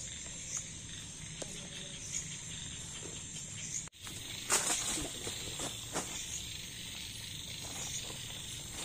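Steady high chirring of night insects such as crickets, with scattered rustles and clicks of camping gear and tarp being handled. The sound briefly drops out about four seconds in, and the loudest rustle follows just after.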